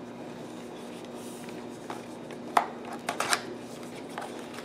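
Cardboard packaging being handled: a small paperboard box is lifted out and opened, with one sharp tap a little past halfway and a few quick scrapes and clicks of paperboard just after.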